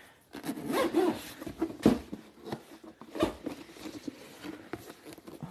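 Zipper of a hard-shell drone case being pulled open around its edge, with rubbing and rustling of the case and two sharp knocks, about two and three seconds in.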